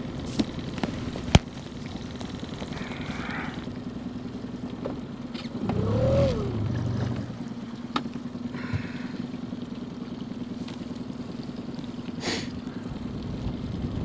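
Boat outboard motor running steadily at low speed, a constant hum. There is a sharp click about a second in and a short swelling sound that rises and falls in pitch around the middle.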